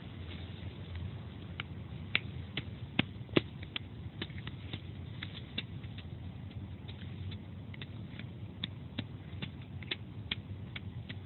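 Footsteps on a dirt path littered with dry leaves and twigs: an irregular scatter of sharp crackles and ticks over a low steady rumble.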